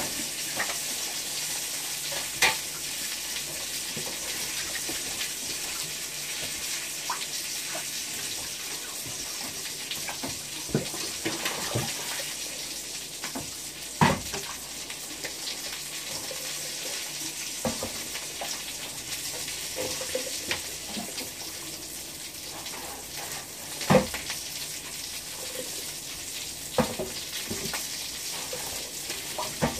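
Food frying in a pan, a steady sizzle throughout, with a few sharp knocks of utensils or cookware, the loudest about halfway through and again near the end.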